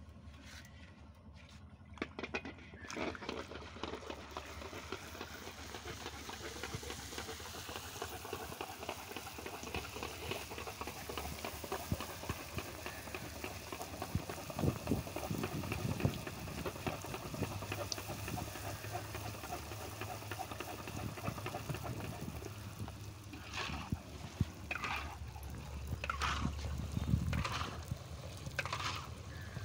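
Golgappa puris deep-frying in hot oil in a kadhai: a steady sizzle and crackle that starts a couple of seconds in. A few short, sharper sounds stand out near the end.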